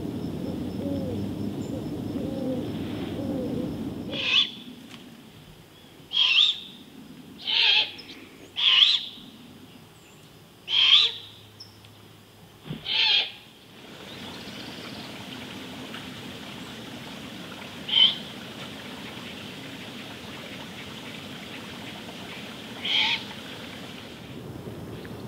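Young great horned owl giving short, high-pitched begging screeches, eight in all: six every second or two, then two more spaced several seconds apart. A low background rumble stops about four seconds in.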